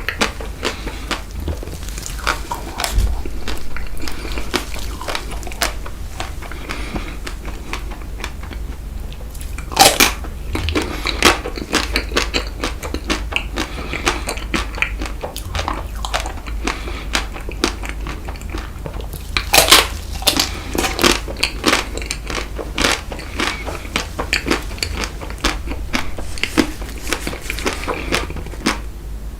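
Close-miked eating of frozen Tico chocolate ice cream: crisp bites into the chocolate shell and steady crunching and chewing. Two especially loud, sharp bites come about a third and two-thirds of the way through.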